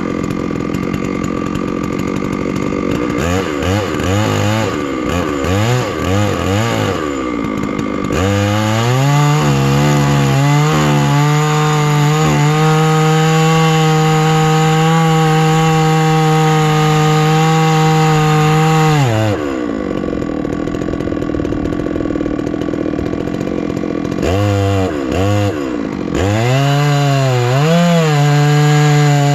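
Two-stroke chainsaw on a chainsaw mill, its chain freshly reprofiled. It idles, is blipped several times, then is held at full throttle for about ten seconds. It drops back to idle, is revved a few times, and is held at full throttle again near the end, as a milling pass through a tamarack log begins.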